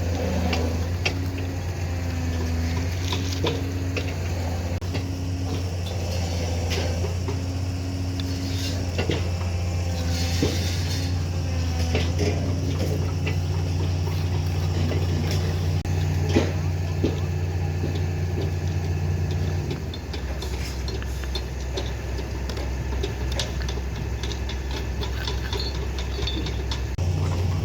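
Excavator diesel engine running steadily, dropping to a lower speed about twenty seconds in and picking back up near the end, with scattered metallic clanks and knocks from the machine working.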